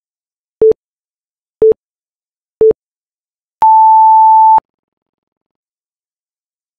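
Interval timer countdown beeps: three short, lower beeps a second apart, then one long, higher beep lasting about a second that signals the start of a work round.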